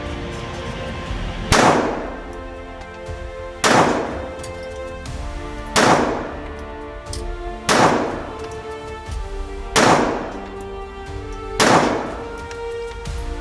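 Six single shots from a Glock 42 .380 ACP pistol, fired slowly and evenly about two seconds apart, over background music.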